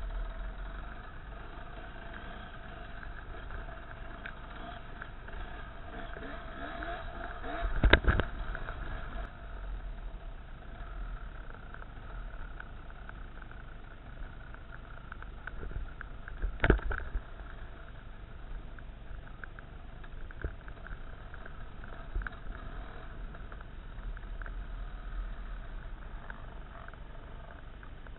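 Off-road trail motorcycle engine running steadily as the bike is ridden along a dirt track, with two loud thumps, one about eight seconds in and one about seventeen seconds in.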